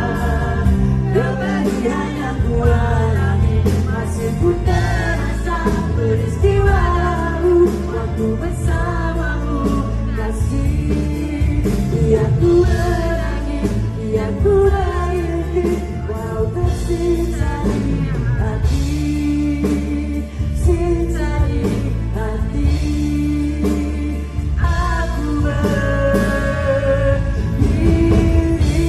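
Live band performance with a male vocalist singing a Malay ballad into a microphone over the band's accompaniment.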